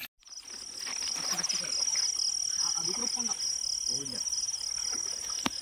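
Night insects trilling in a steady, high, finely pulsing chorus, with a single sharp click near the end.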